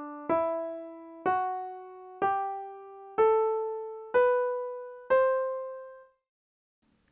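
C Lydian scale played upward on a piano, one note about every second: E, F sharp, G, A, B and up to the high C. The raised fourth (F sharp) is the note that marks the Lydian mode. The top C rings and fades away about a second before the end.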